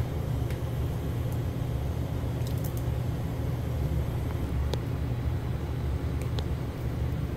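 A steady low mechanical hum or rumble, with a few faint light clicks scattered through it.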